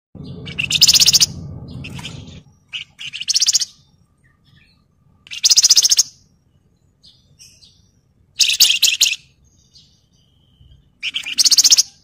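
Javan fulvetta (wergan Jawa) singing: five short, rapid trilled phrases, each under a second, spaced a couple of seconds apart. A low rumble runs under the first two seconds.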